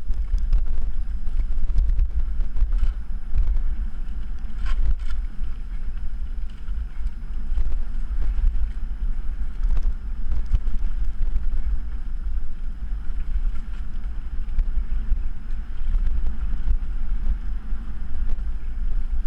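Wind buffeting the camera microphone and the rumble of a bike rolling over a rough, rutted dirt track, with a few sharp clicks about five seconds in.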